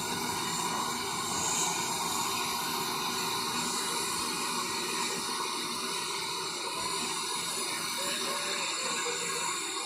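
Steady hiss of steam from Great Western 90, a 2-10-0 decapod steam locomotive.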